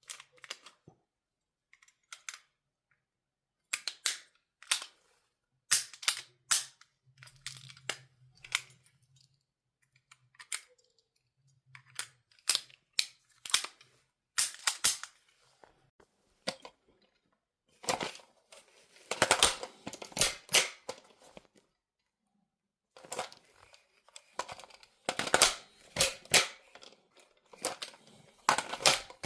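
Guns being handled and reloaded: a long series of sharp mechanical clicks and clacks from their reloading actions, in irregular clusters that come thicker and louder in the second half.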